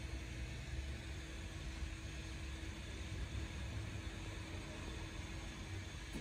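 Steady low rumble and hiss with a faint steady hum underneath.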